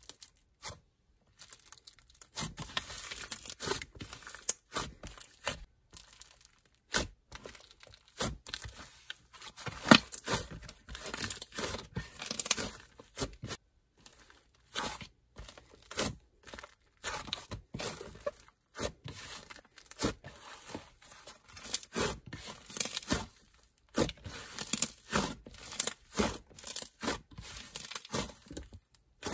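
Fingers pressing, poking and folding a thick clay butter slime, giving dense, irregular sticky clicks and crackles that begin about two seconds in.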